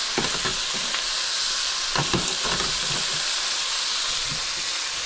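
Pieces of seasoned oxtail frying in hot oil in a pot: a steady sizzling hiss with a few sharper crackles near the start and again about two seconds in.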